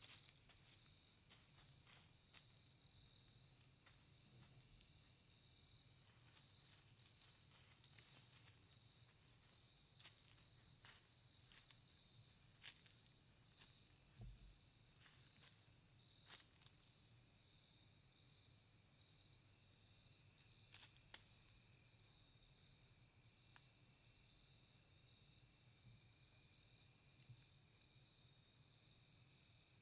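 Chorus of crickets or other night insects trilling steadily in a high pitch, its loudness pulsing gently, with a few faint ticks.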